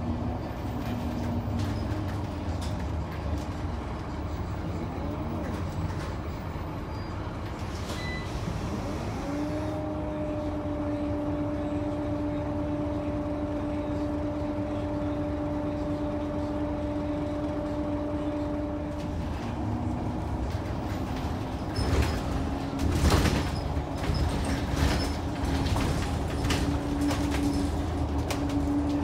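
Scania K94UB bus with a 9-litre Scania DC9 six-cylinder diesel and ZF five-speed automatic, heard from on board while under way: a steady engine and road rumble. A steady whine comes in about a third of the way through and stops about two-thirds in, and rattles and knocks follow near the end.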